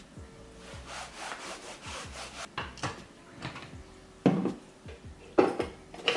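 Kitchen items being slid, handled and set down on a worktop: a stretch of rubbing and scraping with a few light clicks, then two solid knocks about four and five and a half seconds in as objects such as a glass oil bottle and wooden utensils are put in place.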